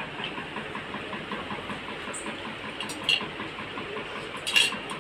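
A steady mechanical hum with a fast, even pulse, and two short sharp clinks, about three seconds in and near the end, the second the louder, from cutlery and plates as people eat.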